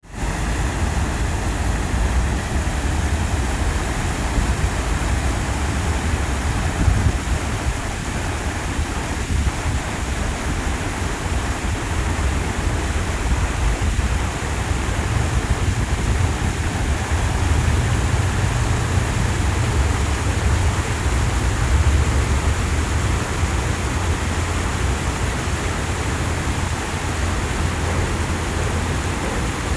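Steady rushing of falling water from a waterfall, with a deep rumble underneath.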